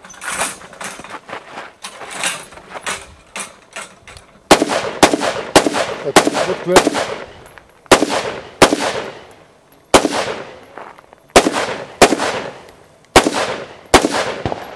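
Semi-automatic AR-style rifle firing. Fainter, quicker reports come in the first few seconds, then loud shots from about four and a half seconds in, mostly in pairs about half a second apart, each with a short ringing echo.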